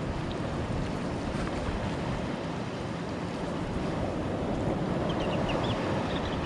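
Wind buffeting the microphone over the steady wash of surf breaking on a reef, with a few faint high chirps near the end.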